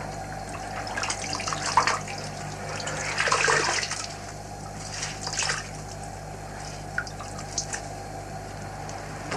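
Water splashing and trickling in a washbasin as a man washes, coming in irregular splashes, with a couple of small clicks near the end over a steady low hum.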